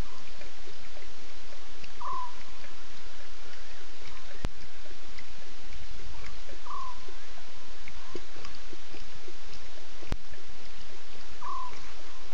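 Night bush ambience at a waterhole: a steady hiss of night insects. Over it, an animal gives a short call, falling slightly in pitch, three times about five seconds apart.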